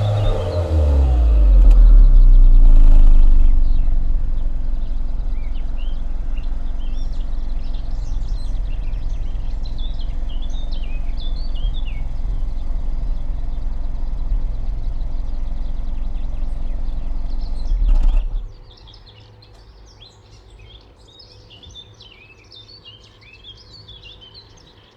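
VW Golf VI 1.2 TSI turbocharged four-cylinder petrol engine heard at the exhaust pipe. The revs fall back to a steady idle, then the engine is switched off about eighteen seconds in with a brief shudder. Birds chirp throughout and are clear once the engine stops.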